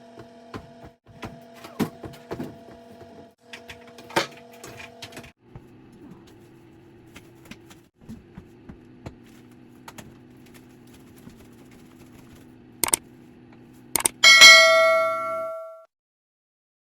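A steady low hum with scattered clicks and knocks, then one loud metallic ding that rings out and fades over about a second and a half before the sound cuts off.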